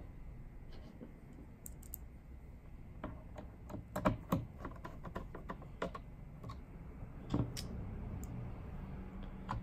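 A screwdriver refitting small screws in the plastic case of a TiVo Bolt: scattered small clicks and taps, a few louder ones about four seconds in and again near seven and a half seconds.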